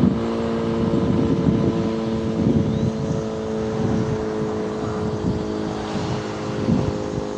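Sentry 20V2T dual-tone outdoor warning siren sounding at a steady pitch, a chord of several held tones, with wind buffeting the microphone.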